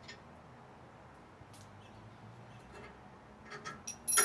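Quiet low background, then a few sharp metallic clicks and one ringing clink near the end, typical of hand tools and metal hardware knocking together while the frame is bolted up.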